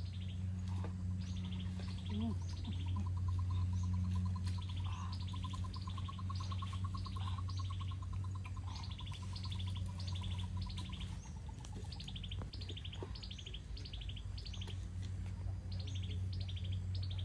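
Small birds chirping, short high notes repeated about three times a second in runs, with a long, even, rapid trill lower in pitch from about two seconds in until about the middle. A steady low hum runs underneath.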